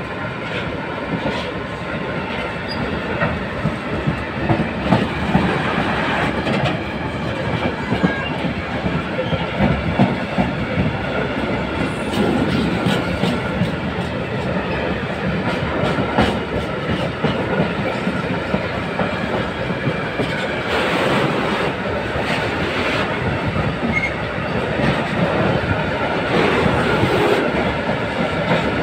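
Freight train of tarpaulin-hooded coil wagons rolling past, the wheels clattering over the rail joints in a steady rumble with frequent short clacks.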